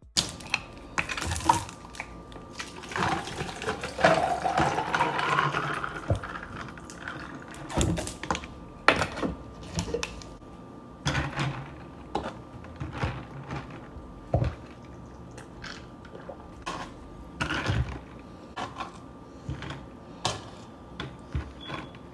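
Water poured into a glass jar, its pitch rising as the jar fills over a few seconds, followed by scattered knocks and clicks of the jar and other items being handled on the countertop.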